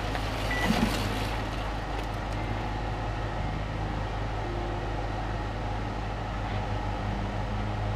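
Steady low hum under a constant outdoor background noise, with a brief louder knock about three quarters of a second in.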